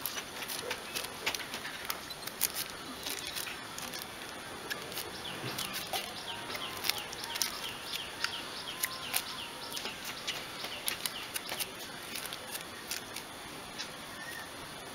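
A plastic strip crinkling and crackling in sharp, irregular clicks as it is wound tightly around the joint of a metal-rod ring. The clicks thin out near the end.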